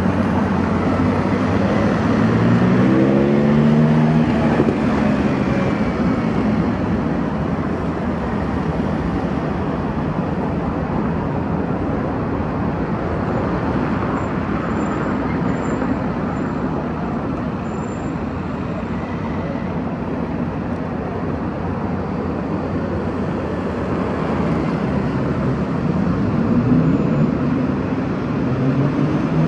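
Steady road traffic: cars and motorbikes driving past. About three seconds in, one engine rises in pitch as it accelerates, and another does the same near the end.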